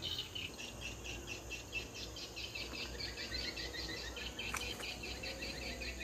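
Insects chirping in a steady run of rapid, high pulses, with a few short bird calls over them.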